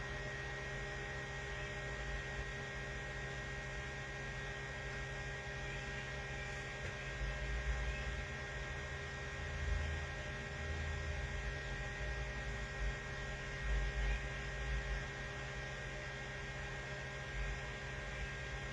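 Steady electrical hum made of several faint tones, with a few soft low bumps in the middle.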